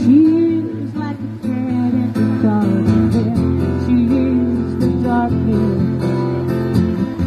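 Music led by acoustic guitar, with a melody line that glides in pitch over a steady low bass.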